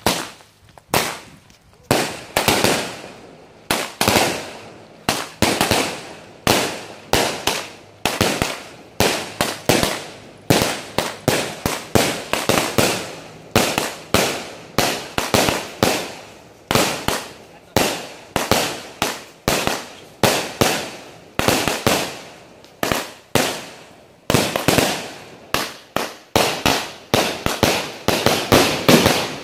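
Aerial fireworks bursting one after another, a sharp bang roughly every second and sometimes faster, each fading out, some with crackling tails.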